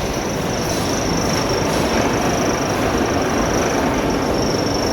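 Continuous carbonization furnace running: a steady machinery noise with a constant high-pitched whine over it.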